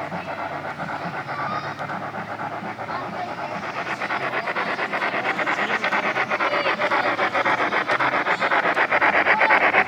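Model train running on its track, a rapid even clatter of wheels on rail that grows steadily louder as it approaches.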